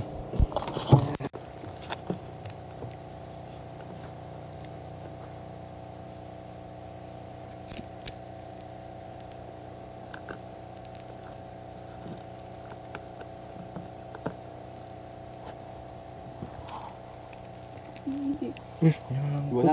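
Chorus of insects shrilling steadily at a high pitch with a fast, fine pulsing texture, over a faint low steady hum.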